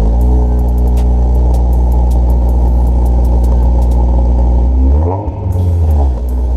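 Honda S2000 inline-four running through its freshly TIG-welded titanium exhaust at a steady idle, with one quick rev about five seconds in that rises and drops back to idle. The engine is being run to check whether the repaired exhaust rattles.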